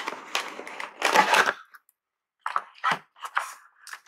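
Cardboard packaging handled by cotton-gloved hands: a flap of the box's corrugated cardboard insert is rubbed and pulled up. There is a run of scraping and rustling for the first second and a half, then a few short knocks and scrapes of cardboard.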